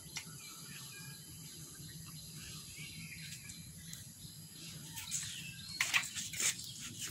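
Outdoor garden ambience: a steady high-pitched insect drone with scattered bird chirps over a low background hum, and a few sharper, louder calls or clicks near the end.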